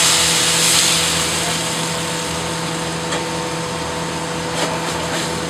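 White wine sizzling in a hot sauté pan, loudest in the first second and dying down to a simmer, over the steady hum of kitchen ventilation; a couple of light clicks later on.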